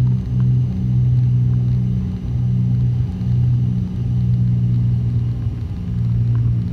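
Cessna 310's two piston engines and propellers droning steadily at reduced approach power, heard from the cockpit. The drone pulses slowly and unevenly as the two engines beat against each other.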